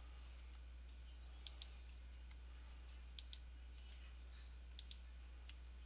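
Computer mouse and keyboard clicks in three quick pairs, about a second and a half apart, as lines in a CAD drawing are picked and deleted one at a time. A faint steady low hum runs underneath.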